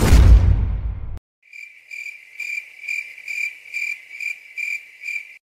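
A whoosh with a heavy low rumble dies away and cuts off about a second in. It is followed by a cricket chirping in an even rhythm, about two high chirps a second.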